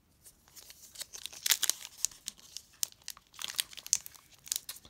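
Foil Pokémon Sword & Shield booster pack wrapper crinkling and tearing in hand as it is opened, in irregular sharp crackles that start about half a second in and come in two louder clusters.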